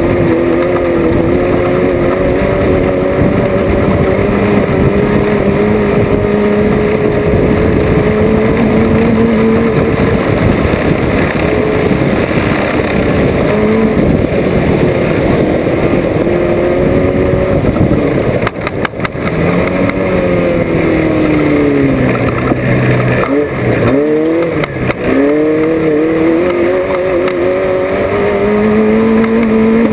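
Off-road race vehicle's engine running hard, its pitch rising and falling with the throttle over a constant rumble from driving across rough ground. The revs drop sharply twice, about two-thirds of the way through, before climbing again.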